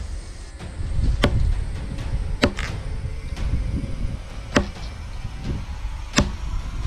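Axe chopping mango-tree wood: four sharp blows, spaced a second or two apart.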